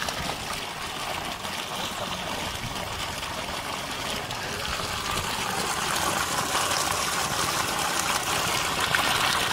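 Water gushing from the outlet pipe of a solar-powered well pump and splashing into a muddy pool, a steady rush that grows louder over the second half.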